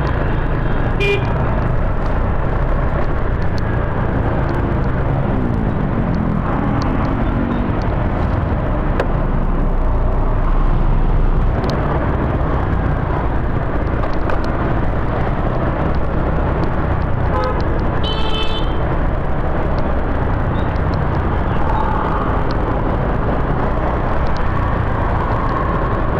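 Motorbike ride through dense scooter and car traffic: a steady, loud rumble of engines and road noise, with two short horn beeps, one about a second in and a longer one about two-thirds of the way through.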